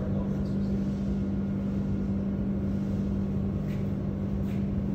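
Steady drone of industrial machinery, a constant low hum with one strong steady tone.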